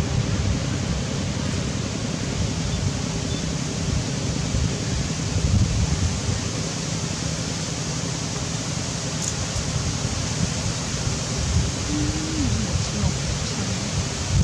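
Steady wind noise on the microphone, an even rushing hiss with low rumble and no distinct events. Near the end a faint short tone falls in pitch.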